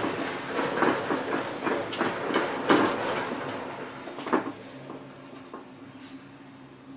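Gondola cabin of the Millennium Cross cable car rolling out of the bottom station: its grip and hanger clatter and knock over the station's guide rollers in an irregular run, loudest about two and a half seconds in and again near four and a half seconds. It then settles to a quieter steady hum as the cabin leaves the station onto the cable.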